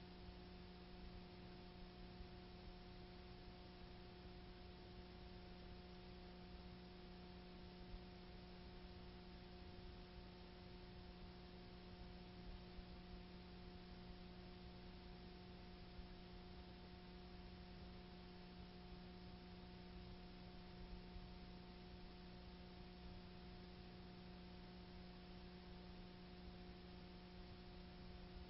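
Near silence: a faint, steady hum with a few constant tones under a light hiss.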